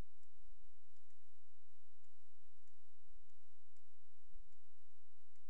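Computer mouse buttons clicking about eight times at irregular intervals while stick-figure joints are dragged and frames are added. A steady low electrical hum runs underneath.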